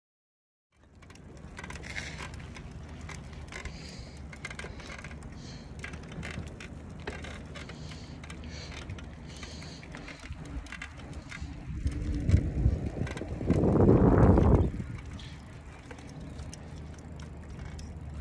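Recumbent trike rolling along a paved path, with the clicking and rattling of its freewheel, chain and fittings. Partway through, a louder low rush lasts about two seconds.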